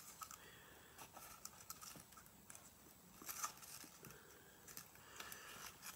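Near silence with a few faint clicks and rustles of a plastic deli cup being handled, the clearest a little past the middle.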